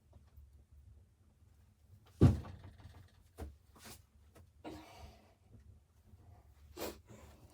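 A single loud thump about two seconds in, followed by a few lighter knocks and short clatters, in a small room.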